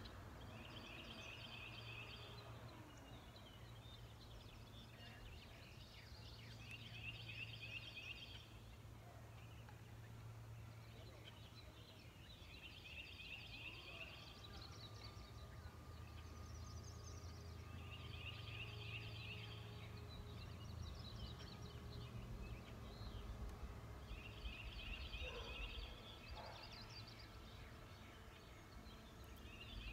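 A bird singing a short, rapid trill, repeated about every six seconds, faint over a low steady hum.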